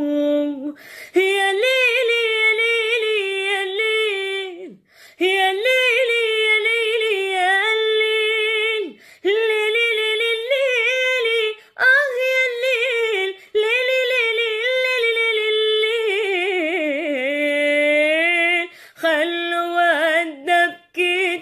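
A woman singing an Arabic song solo and a cappella. She sings long, wavering, ornamented phrases that are broken by short pauses about a second, five, nine, twelve and nineteen seconds in.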